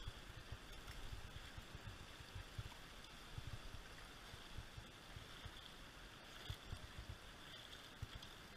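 Shallow rocky creek running, a faint steady rush of water, with scattered low thumps and rumbles of the body-worn action camera being knocked about.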